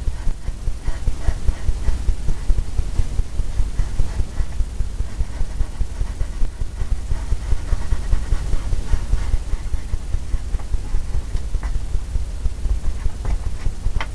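Oil-paint brush working against a stretched canvas on an easel: a rapid, uneven low thudding and scrubbing with a few faint clicks.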